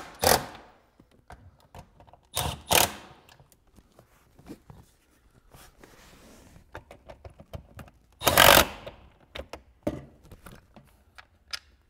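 Cordless power driver spinning nuts down on a short shift kit's mounting studs in three short runs of about half a second each: one at the start, one about two and a half seconds in, and the loudest near the end. Light clicks and rustling come between the runs.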